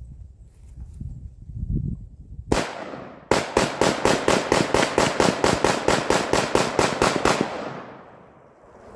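AR-15 rifle firing: a single shot, then after a short pause a rapid string of about twenty shots, roughly five a second, with the echo dying away after the last one.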